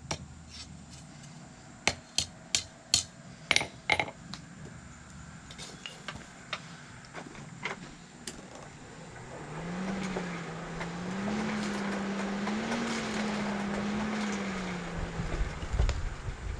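Hammer blows on steel at the anvil: a quick run of sharp, ringing strikes about two seconds in, then scattered lighter taps, as the tip of a hay-rake tine is folded into a small curl. In the second half a steady hum with a slightly wavering low tone rises for about six seconds and then fades.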